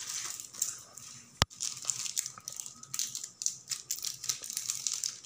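Clear plastic bag and wrapped sweets crinkling as they are handled and spread out, in irregular crisp crackles. One sharp click stands out about a second and a half in.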